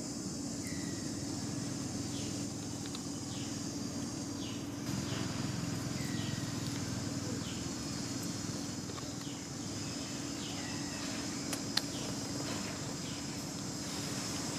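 Steady outdoor background hum with a series of short, high animal chirps, each falling in pitch, coming every second or so. There is a single sharp click near the end.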